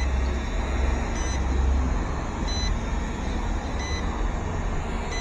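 Small XT9 camera drone in flight, its propellers buzzing steadily over a low rumble. A short, high electronic beep repeats a little more than once a second.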